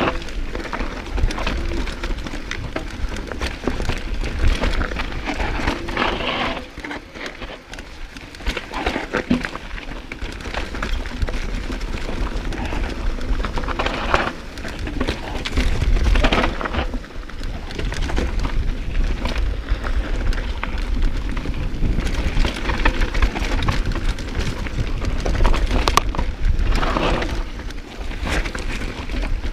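Enduro mountain bike descending a rocky dirt trail: tyres crunching and skidding over loose stones, the bike rattling over bumps, with heavy wind buffeting on the camera's microphone.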